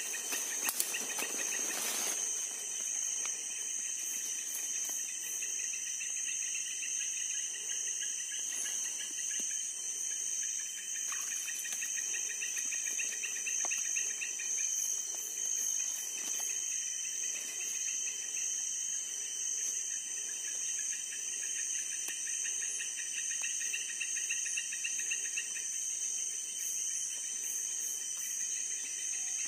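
Night insect chorus: a steady high-pitched trill, with a second, pulsed chirping lower down through most of the middle. A few brief rustles and clicks come about a second in.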